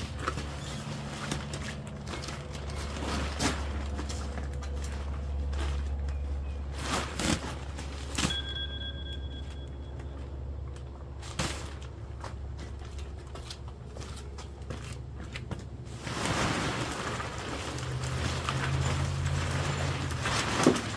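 Tent poles and nylon tent fabric being handled: scattered knocks, clicks and rustling over a steady low hum, with a longer rustling stretch near the end.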